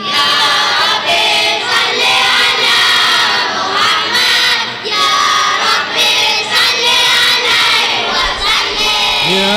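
A crowd of children singing the chorus of a sholawat together in answer to the leader's line, many voices at once, loud and a little ragged.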